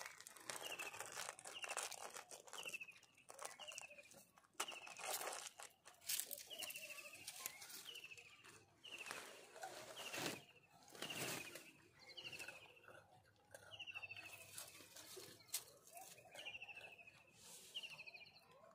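Soft rustling and crinkling, in scattered sharp crackles, as biscuits are handled and handed to langurs. Behind it, a small bird repeats one short falling chirp every second or so.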